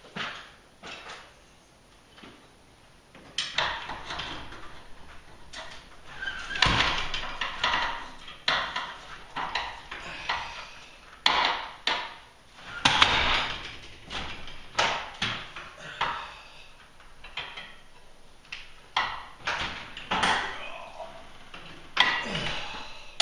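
Irregular knocks, clanks and scraping as a sectional garage door with a broken lift cable is worked down by hand with bars.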